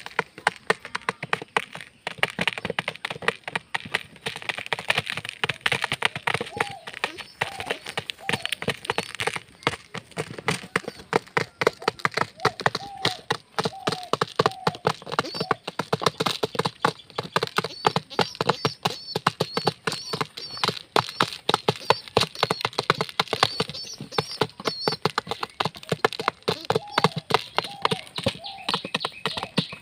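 Pigeons pecking lentils out of a plastic jar: rapid, irregular beak taps and clicks on the plastic, several a second, keeping on without a break.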